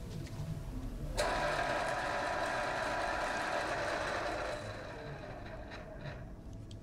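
Electric pencil sharpener grinding a pencil: the motor cuts in suddenly about a second in, runs steadily for about three seconds, then dies away.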